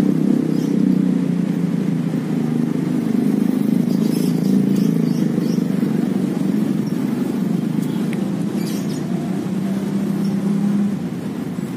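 Steady noise of road traffic, with cars passing over a bridge, easing slightly near the end.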